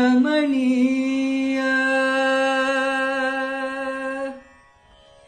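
A young man's solo voice singing the end of a Sanskrit song, holding one long steady final note without accompaniment until it stops about four seconds in.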